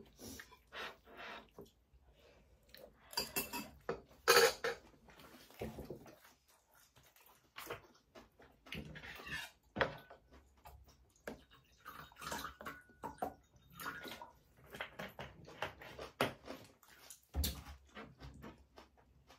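Metal spoons and chopsticks clinking and scraping against plates, a ceramic bowl and plastic food containers during a meal, with wet eating sounds between them. A series of short, separate clinks, the loudest about four seconds in.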